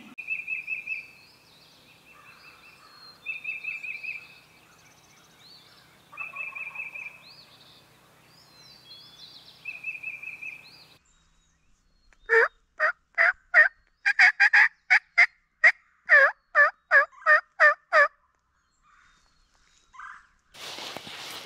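A songbird trills four times, a short high trill every few seconds. Then comes a loud series of about eighteen turkey yelps, a few per second. A burst of rustling follows near the end.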